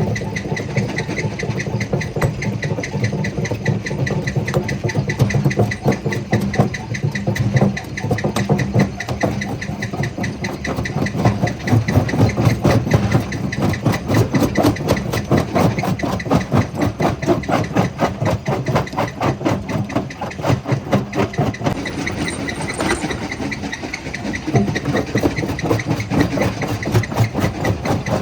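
Jaw crusher running, a steady fast pulsing mechanical rattle over a low hum as stones are crushed.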